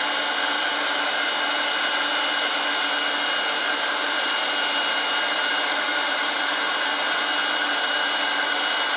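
Electric air blower running steadily, forcing air into a homemade forge: an even rushing hiss with a faint steady whine.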